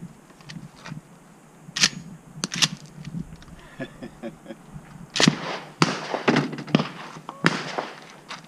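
Shotgun sounds: sharp cracks, two about two seconds in and a quick run of five between about five and seven and a half seconds in, each with a short ringing tail.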